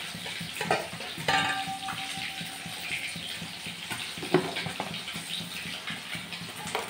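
Catla fish pieces frying in mustard oil, a steady sizzle, with a few light knocks as garlic cloves are dropped into a steel mixer-grinder jar.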